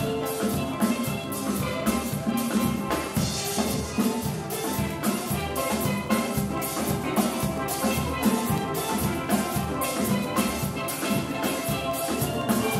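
Steel pan band playing live: several steel pans carrying the melody and chords over bass pans and a drum kit keeping a steady beat.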